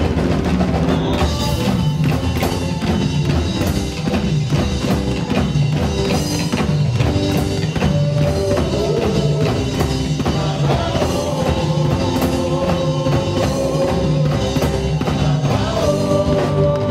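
Live gospel band playing a song with a steady drum-kit beat, bass guitar and keyboard, and voices singing.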